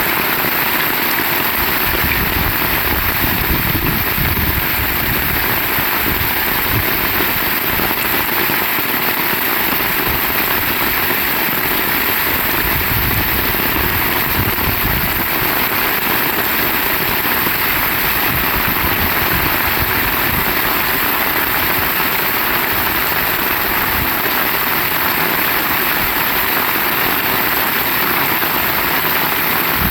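Heavy rain falling steadily, with a low rumble underneath that swells and fades a couple of times.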